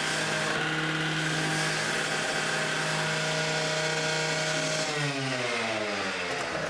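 Vehicle engine holding a steady note, then winding down in pitch about five seconds in.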